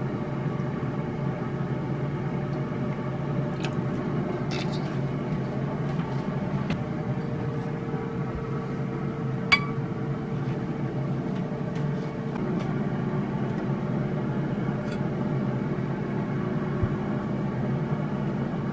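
Air fryer running with a steady fan hum. Light clicks of tableware being handled, with one sharper clink about nine and a half seconds in.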